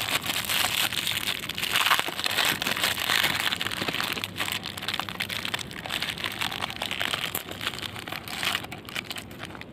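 Clear plastic wrapper of a packet of bijli firecrackers crinkling as it is handled and opened by hand. The crackle thins out near the end.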